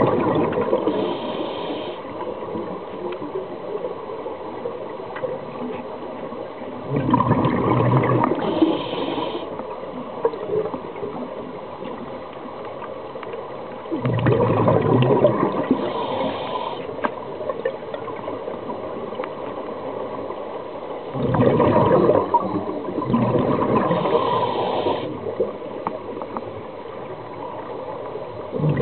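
Scuba diver's exhaled breath bubbling out of the regulator underwater, in bursts of a couple of seconds about every seven seconds, with a steady water hiss between breaths.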